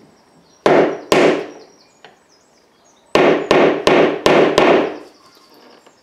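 Hammer striking the handle end of a flat-blade screwdriver, driving the blade into the slot of an old, painted-over slotted hinge screw so it will grip: two sharp blows about a second in, then five quick blows a couple of seconds later.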